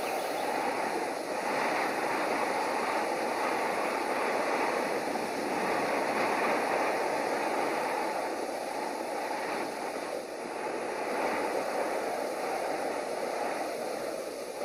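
Steady rushing wind noise, even throughout with a slight dip about two-thirds of the way in.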